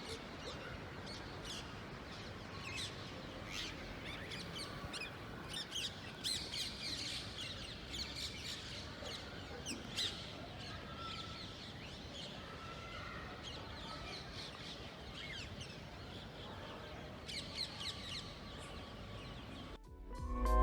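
Birds chirping, many short high calls repeating throughout over a steady background hiss of outdoor ambience.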